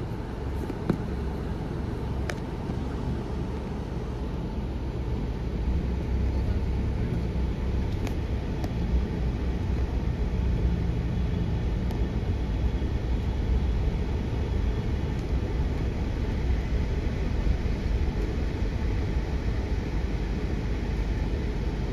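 Steady low rumble of a moving vehicle that gets a little louder about five seconds in, with a few faint clicks.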